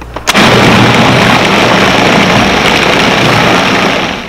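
Food processor running at full speed, its motor humming and its blade chopping a load of peppers and other vegetables into a coarse spread. Starts abruptly a moment in and winds down just before the end.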